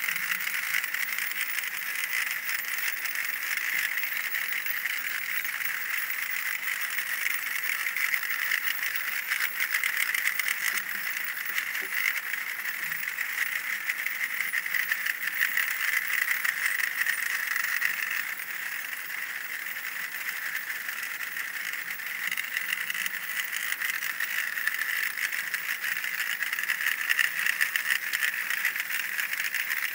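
Piccolos and snare drums of several Basel Fasnacht cliques playing at once, heard as a dense rattling wash with the piccolos' high notes sounding over it.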